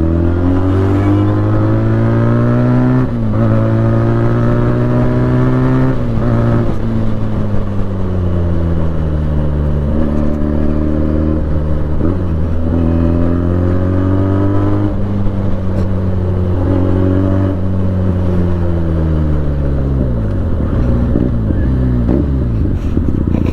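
Benelli 300's parallel-twin engine under way: its pitch climbs and drops sharply twice in the first six seconds as it shifts up, then eases off, holds and picks up again, and falls away near the end as the bike slows.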